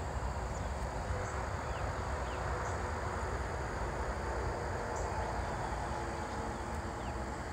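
Outdoor ambience: a steady low rumble and hiss, with a few faint, short high chirps now and then.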